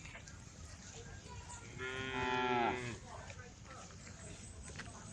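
A cow moos once, a call of about a second that drops in pitch as it ends.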